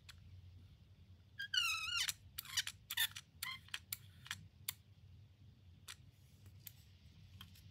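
Insize 200 mm digital caliper being worked by hand: a short squeak about a second and a half in as its sliding jaw moves along the steel beam, then a quick run of sharp clicks over the next few seconds and a few spaced clicks near the end.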